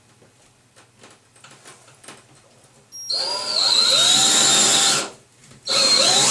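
Cordless drill with a masonry bit boring through glazed ceramic wall tile, in two runs: the first starts about three seconds in and lasts about two seconds, the second starts near the end, the motor speeding up as each run begins.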